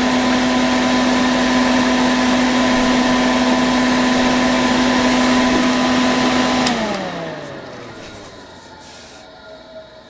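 Pelonis disc furnace running on its fan-only setting: a steady motor hum with a rush of air. About two-thirds of the way through it is switched off with a click, and the fan winds down, its hum falling in pitch and fading.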